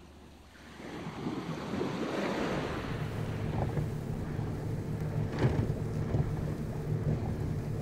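A boat's engine running steadily with a low hum, wind buffeting the microphone, and one short knock about five and a half seconds in.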